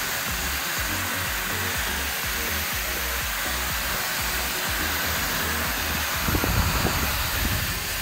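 Gaabor stick vacuum cleaner running steadily as its floor head is pushed across a wooden floor, with a louder stretch of crackling and rattling about six seconds in as it sucks up small bits of debris.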